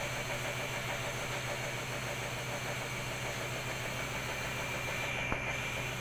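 VON VALW-09FXK 9 kg front-loading washing machine running, a steady low motor hum with a thin steady whine above it. A single short click about five seconds in.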